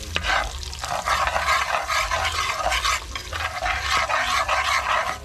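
Curry powder and fish frying in hot oil in a metal pot, sizzling loudly while a metal spoon stirs through it. The sizzle grows stronger about a second in.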